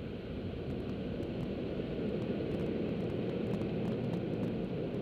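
Steady low rushing rumble of drive-through car wash equipment heard from inside the car, swelling slightly over the seconds, with a few faint light ticks.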